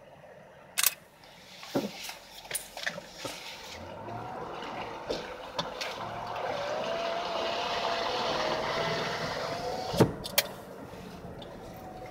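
Car driving slowly over a snow-covered road, heard from inside: tyre and running noise builds for a few seconds and then eases. A few sharp clicks and knocks come early and again near the end.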